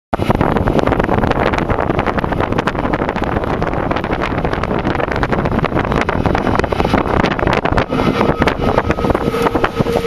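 Passenger train running, heard from an open carriage window: a steady rumble of the wheels on the rails with many rapid clicks and rattles, and wind buffeting the microphone. About eight seconds in, a steady high whine joins in.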